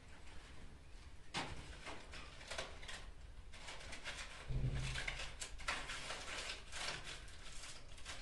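Hand-handling noises as a paper garland is fixed to a wall: scattered rustles and light knocks. There is a dull thump about four and a half seconds in.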